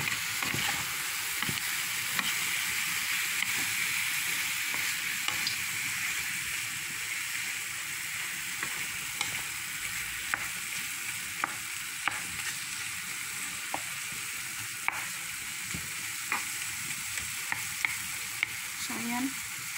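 Chopped chicken sizzling in a frying pan while a wooden spatula stirs it, with scattered sharp taps and scrapes of the spatula against the pan. The chicken is cooking in the juices it has released.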